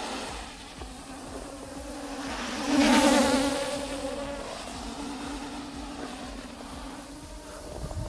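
Traxxas Aton quadcopter's motors and propellers buzzing in flight, a steady pitched hum that swells loudest about three seconds in and then eases back.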